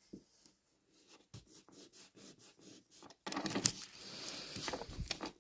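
A few faint taps, then from about three seconds in a couple of seconds of rubbing and rustling: fingers pressing and smoothing glued newspaper onto a model van's roof.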